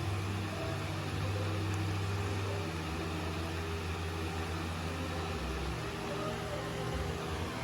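A steady low engine hum, with the deepest note shifting down about five and a half seconds in.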